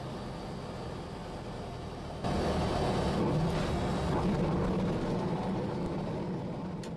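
Single-engine propeller aircraft's engine and propeller, heard from inside the cockpit as a steady drone that jumps louder suddenly about two seconds in.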